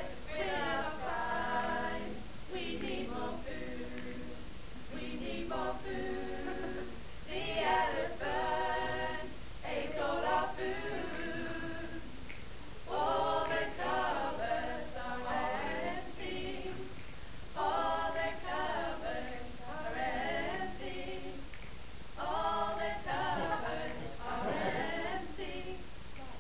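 A small mixed group of women and men singing together a cappella from song sheets, in phrases with short breaks between them.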